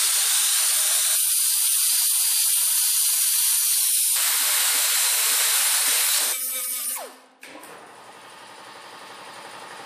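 Handheld plasma cutter hissing steadily as it cuts a steel tank wall around the old 1-inch outlet. The hiss stops about seven seconds in, leaving a much fainter steady background noise.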